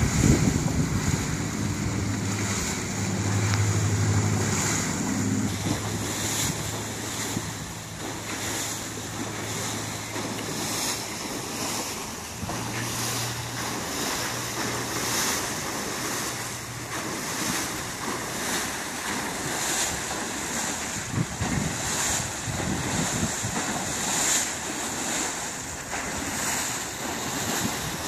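Propeller of a Liberty ship turning at the surface beside the rudder, churning and splashing the water in repeated surges, with wind buffeting the microphone. A low steady hum runs underneath and fades out after about two-thirds of the time.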